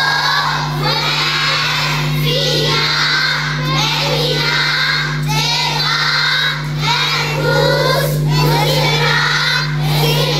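A large group of children reciting a memorised list of Amharic words in unison, loudly and in a chant, about one word a second. A steady low hum runs underneath.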